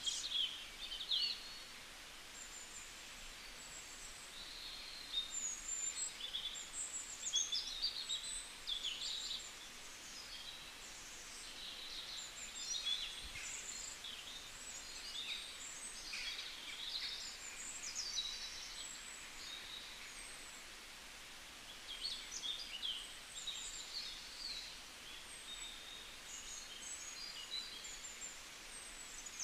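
Small birds chirping and twittering: many short, high calls in quick runs, with a couple of brief lulls, over a faint steady background hiss.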